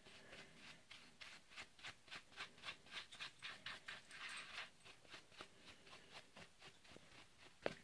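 Faint, rhythmic scrubbing of a brush on a chainsaw's housing, about three to four strokes a second, cleaning oily dirt from around the tensioner and chain brake.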